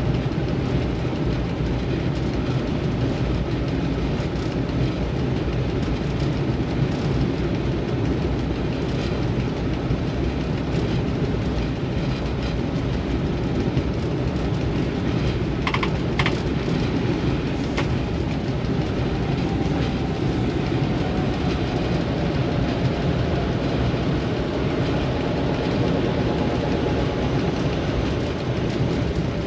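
Cab of a moving ST44 'Gagarin' diesel locomotive: the steady drone of its two-stroke V12 diesel engine mixed with wheel and rail noise. A few short clicks come about halfway through.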